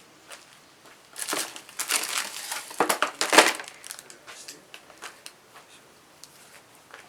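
A burst of rough rustling and crackling handling noise, irregular strokes lasting about two and a half seconds and loudest near the end, followed by a few light clicks.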